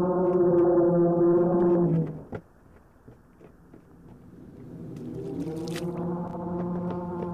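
Low, steady droning tone with many overtones, a sustained drone from the film's score. It cuts off sharply about two seconds in, leaving a few faint clicks, then slowly swells back in from about halfway through.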